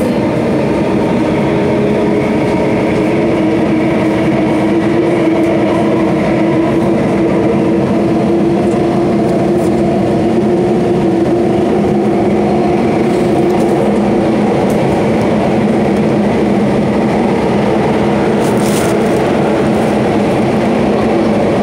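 Singapore MRT Circle Line metro train running at speed through a tunnel, heard from inside the front car: a steady rumble with a constant hum.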